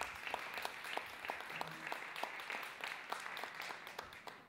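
A small audience applauding, with many separate hand claps heard. The clapping cuts off suddenly at the very end.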